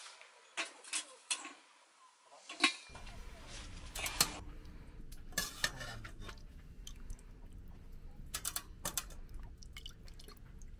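A stainless-steel cooking pot set down on a camp stove with a few metallic knocks, then a metal ladle clinking against the pot as stew is stirred and scooped.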